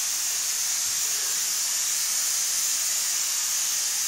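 Pressure cooker on a gas stove venting steam through its weight valve: a steady, high-pitched hiss that holds even throughout.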